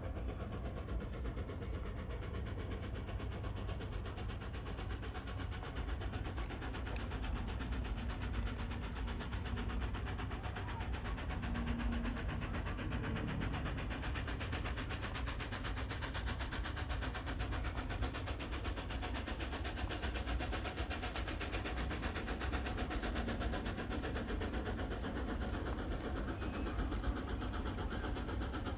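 An engine running steadily with a fast, even pulse, holding the same level throughout.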